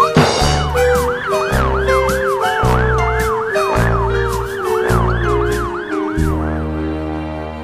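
Ambulance siren in a fast yelp, its pitch sweeping up and down about three times a second, stopping about a second before the end. Dramatic background music with pulsing low bass notes plays under it and holds on after the siren stops.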